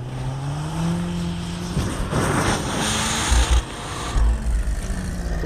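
An off-road vehicle's engine revs up and holds a steady pitch, with a rushing noise swelling and fading in the middle and a few low thumps.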